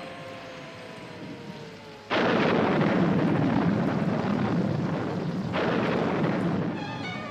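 A fading, falling engine whine, then about two seconds in a sudden loud rumble of noise that holds for several seconds and eases off a little near the end.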